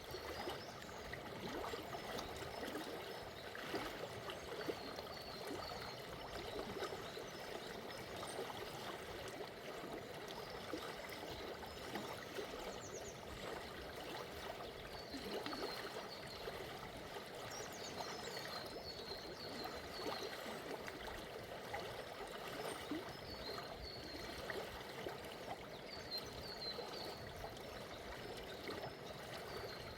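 Forest river flowing with a gentle current, a steady babble of water. Small birds twitter in the background in short runs of high chirps every few seconds.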